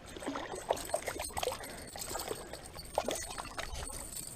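Water splashing and dripping in short gurgles, with scattered small clicks, as a freshly caught bass is handled at the water's edge.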